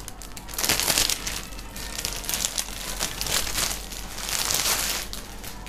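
Clear plastic clothing packaging crinkling in irregular bursts as it is handled and opened.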